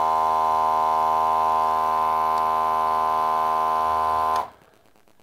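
Membrane vacuum pump of a Zhongdi ZD-915 desoldering station running loudly with a steady pitched hum, rewired to run constantly and evacuating the added vacuum container. It cuts off suddenly about four seconds in as the station is switched off.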